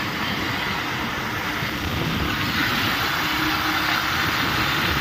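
Steady rush of wind over a phone microphone on a moving motorcycle, mixed with the engine and tyre noise of the ride.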